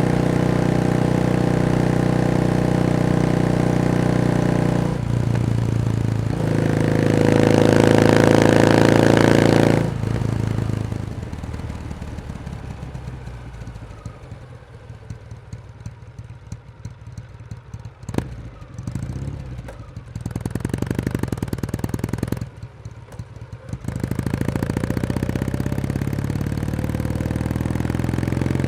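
Kawasaki W1S air-cooled vertical-twin engine running under way: a steady run, a gear change about five seconds in, then revving up until the throttle closes at about ten seconds. It drops to a quieter, low-revving chug with a single click, and picks up again near the end.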